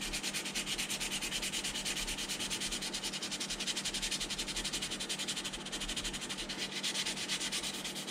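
Sandpaper rubbing back and forth over putty-filled seams on a plastic model hull, in quick, even strokes about six a second.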